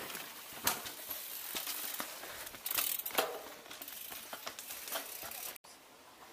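Leaves and twigs rustling and crackling close to the microphone, with scattered sharp crackles; the noise cuts off abruptly near the end.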